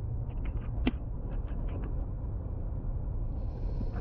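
Steady low road rumble of a Toyota car driving on a snow-covered street, heard from inside the cabin. A sharp click about a second in, with a few lighter ticks around it, and a higher hiss joins near the end.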